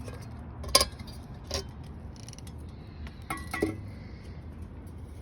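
A few sharp metallic clicks and clinks as the motorcycle's headlight is worked loose and pulled off its mount: one loudest about a second in, another shortly after, and a quick ringing cluster past the halfway point.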